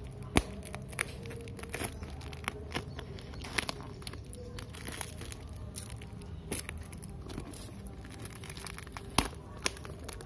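Plastic parcel wrapping crinkling and crackling as it is handled and cut open with scissors. Scattered sharp clicks and snips run through it, the loudest just after the start and about nine seconds in.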